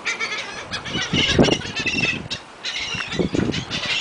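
A flock of seagulls calling over one another: many short, high, overlapping cries. Two short low rumbles stand out, about a second and a half in and again near three and a quarter seconds.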